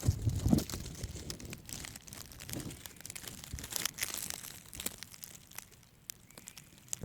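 Handling noise from a camera being moved around: irregular crackling and rustling, heaviest in the first second, thinning to a few scattered clicks near the end. The crackle comes from the camera being moved, not from the ants.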